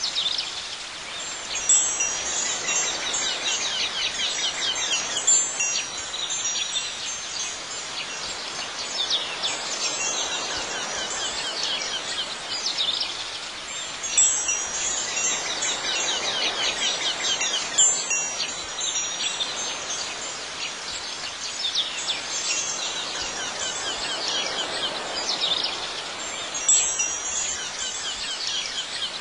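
Wind chimes ringing continuously, with louder clusters of strikes every few seconds over a constant high tinkling.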